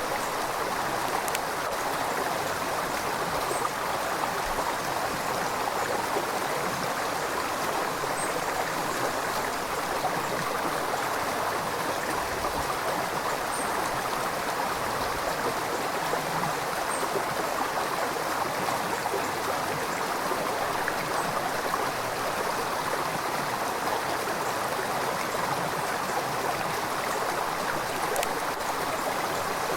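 A river running steadily over rocks, a continuous rushing and burbling of flowing water.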